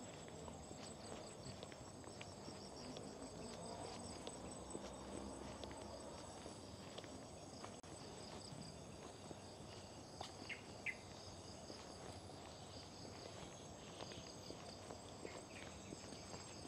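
Insects chirping in a fast, even pulsing rhythm over a steady high-pitched drone, fairly faint.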